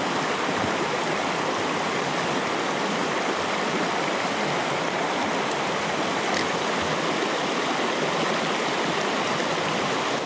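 Fast, shallow mountain river rushing over rocks in small rapids: a steady rush of water.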